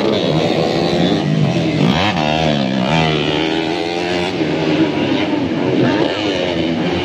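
Several motocross dirt bike engines revving, their pitch rising and falling as the bikes ride through the corners.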